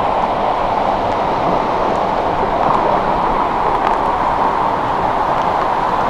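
Waterfall pouring into a rock pool: a steady rush of falling water at an even level.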